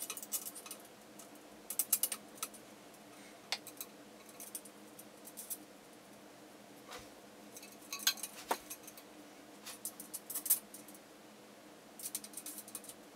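Irregular small clicks and light ticks of hand assembly: screws, washers and an LED strip panel tapping and catching against a light tent's frame as they are fitted, in short clusters a few seconds apart.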